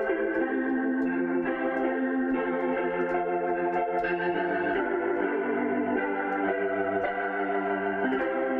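A sampled keyboard patch from East West's Ghostwriter library playing held chords, the chord changing every second or so.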